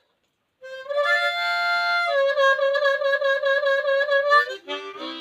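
Instrumental music after a brief silence: a few long, held notes with a slightly wavering tone, then a short run of quicker, lower notes near the end.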